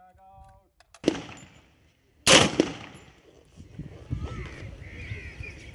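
Two sharp rifle shots from an AR-style semi-automatic rifle, about a second and a quarter apart, each dying away in a short ringing tail. The second shot is the louder.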